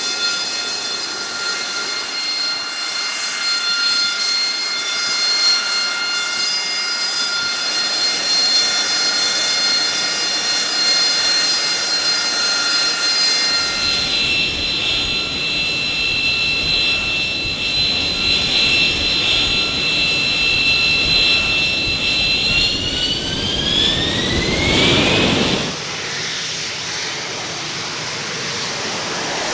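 AV-8B Harrier II's Rolls-Royce Pegasus turbofan running with a steady high whine over a jet rush. About three-quarters of the way through, the whine rises in pitch as the engine spools up to takeoff power. It then gives way to a more distant rushing noise.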